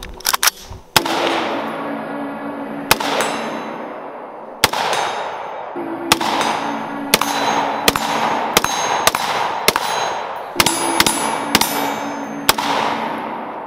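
Semi-automatic AR-style rifle firing a string of about fifteen shots at uneven spacing, some in quick runs of three or four, each shot ringing briefly.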